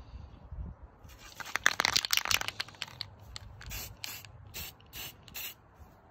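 Rust-Oleum 2-in-1 filler and sandable primer spray can hissing as the helmet is sprayed: one longer stretch of spray about a second in, then a run of short bursts.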